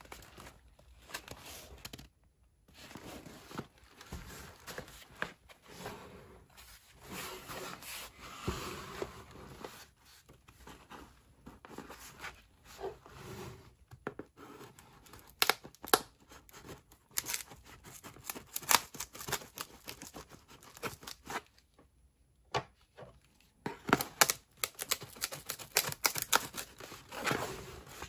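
Folding knife blade slitting along the seam of a cardboard ration box, cardboard scraping and tearing in short sharp strokes, with the box rubbed and handled in between. The sharp cutting sounds come in the second half and are densest near the end.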